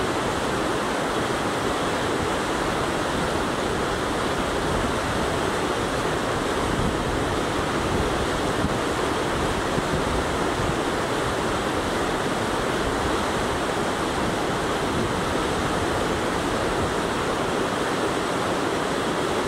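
Whitewater rapids on the Shoshone River rushing steadily, a pretty loud, even wash of water noise.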